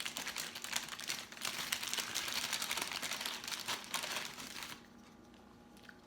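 Takeout food packaging being handled, rustling and crinkling with many small crackles, until it stops about three-quarters of the way through.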